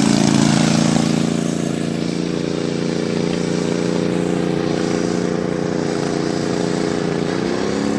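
Riding lawn mower engine running steadily at wide-open throttle, slightly louder in the first second, its pitch rising a little near the end.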